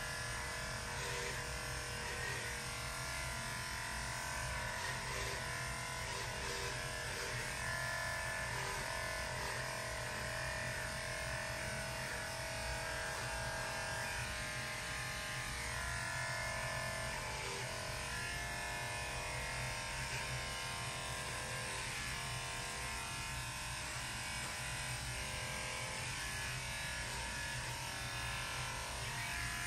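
Electric dog-grooming clippers running steadily with a continuous motor hum as they are worked through a dog's coat.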